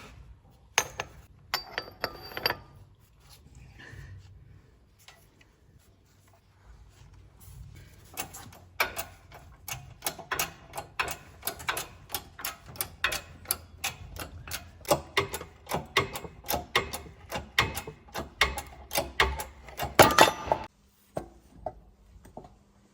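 Hand tools working on a wheel hub during a hub bearing replacement: a run of sharp clicks and taps, about four a second, that stops suddenly near the end.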